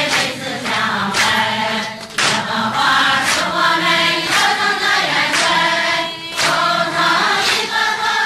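Church congregation singing a Chinese hymn together, many voices in unison, with short breaks between lines about two and six seconds in.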